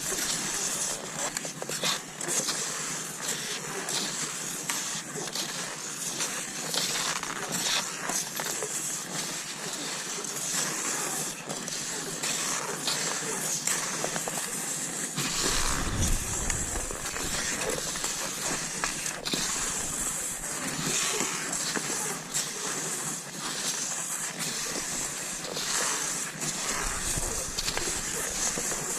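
Cross-country skis sliding over snow with a steady hiss, broken by frequent short, irregular clicks of strides and pole plants. There is a low thump about halfway through.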